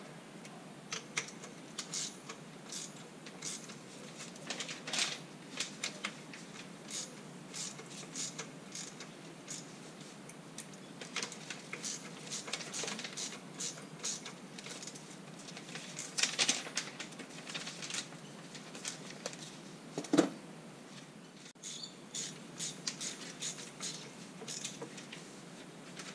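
Small metal tools and hardware clicking and clinking irregularly as screws and fittings are worked on a metal stern drive, with one louder knock about three-quarters of the way through.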